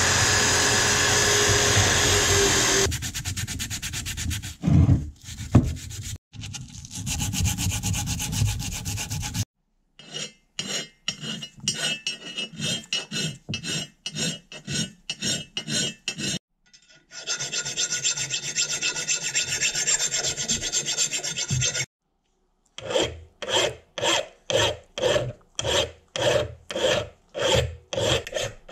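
An electric drill spinning a small abrasive wheel against a vintage meat grinder's rusty metal housing for about the first three seconds. Then a hand file scrapes across the grinder's metal body in steady strokes, about two a second, in several runs with short pauses between them.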